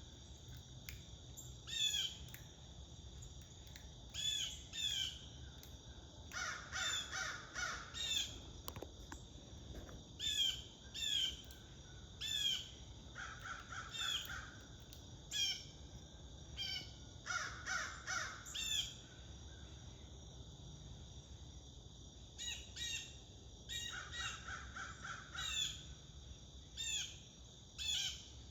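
Crows cawing in four bouts of harsh repeated calls, with smaller birds chirping sharply in between over a steady high insect drone.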